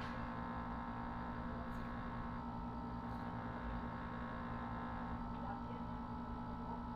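Steady low electrical hum over quiet room tone, with a few faint ticks.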